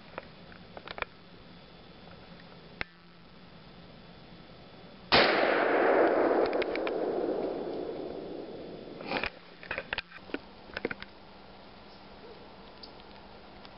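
A single gunshot about five seconds in, loud and followed by a long tail that fades over several seconds. A scatter of short sharp clicks comes a few seconds after it.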